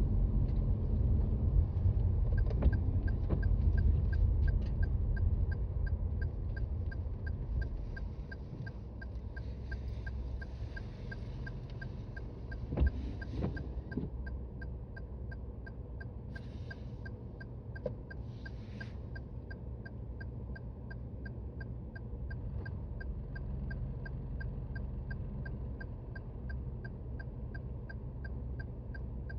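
A Toyota Raize's turn-signal indicator ticking steadily in the cabin, about two clicks a second, over tyre and road rumble that fades as the car slows down. A single knock comes about 13 seconds in.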